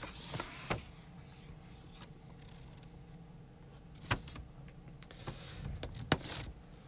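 Stylus tapping on a tablet's glass screen while handwriting notes: a few sharp, separate clicks spread out over the seconds, over a faint steady low hum.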